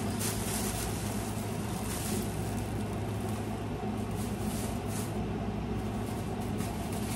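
A steady low hum, with a few short rustles of packaging being handled.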